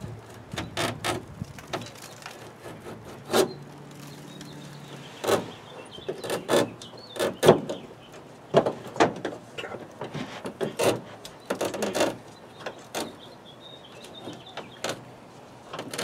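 Old window screen being pulled and worked loose by hand from the window frame of a camper shell: a string of irregular scrapes, rustles and clicks.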